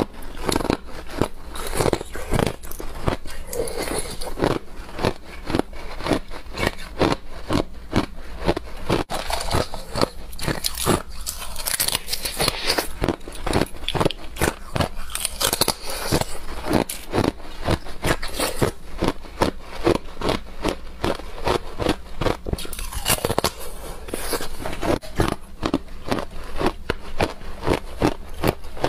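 Clear ice being bitten and chewed close to a clip-on microphone: a dense, unbroken run of sharp crunches and cracks, several a second.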